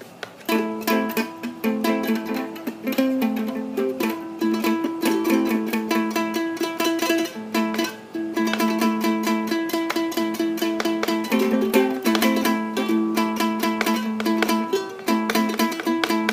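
Ukulele played with a coin as a pick: quick, closely spaced picked notes and strums running on as a continuous tune, starting about half a second in.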